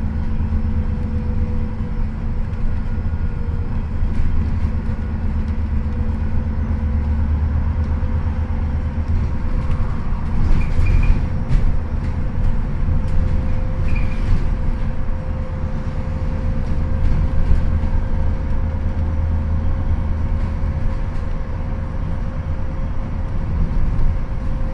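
Inside a moving 2018 ADL Enviro400 MMC double-decker bus with a Euro 6 engine and Voith automatic gearbox, cruising at steady speed. A constant low engine and road rumble sits under a steady whine that rises slightly about halfway through.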